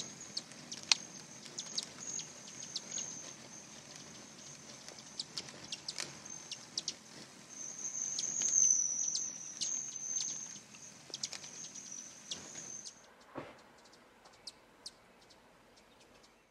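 Hummingbirds at close range: a steady, high-pitched buzzing trill that swells loudest around the middle and stops about thirteen seconds in, with many short, sharp chirps scattered throughout. A soft knock comes just after the trill stops.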